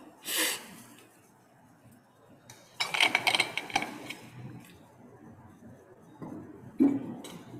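A water bottle being handled and drunk from: short bouts of rustling and light clinking, the busiest a little under a second and a half long about three seconds in, with quiet between.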